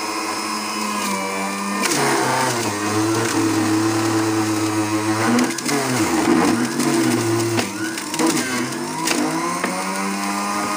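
Electric blender motor running, blending carrots into juice in a plastic jug. Its hum drops sharply in pitch about two seconds in, dips twice in the middle, and climbs back up near the end.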